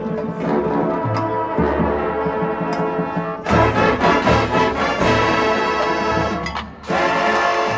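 Marching band brass and percussion playing. About three and a half seconds in the full band comes in louder; there is a short break near the end before another loud chord.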